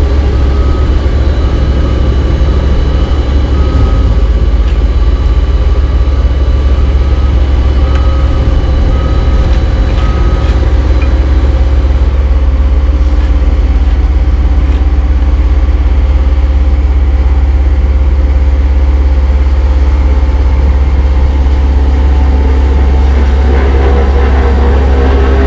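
Caterpillar AP655F asphalt paver's diesel engine running steadily, a deep constant drone, with a reversing alarm beeping about once a second through roughly the first ten seconds. A second machine's engine note joins near the end.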